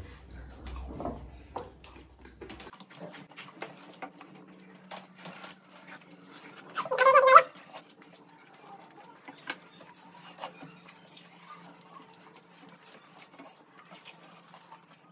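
Quiet clicks and knocks of two people eating quickly over a steady low hum, with one loud high-pitched cry from a pet about seven seconds in.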